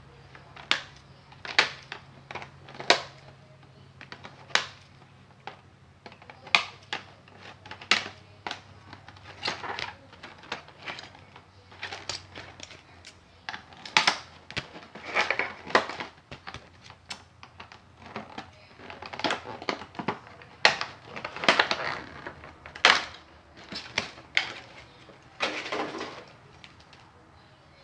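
Hands unpacking a plastic-packaged action figure: irregular sharp clicks and taps with crinkling plastic, and a few longer rustling bursts in the second half.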